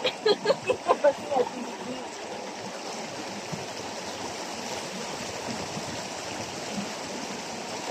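Steady rush of shallow stream water, with splashing as a person moves through it lying down. A voice speaks briefly in the first second and a half.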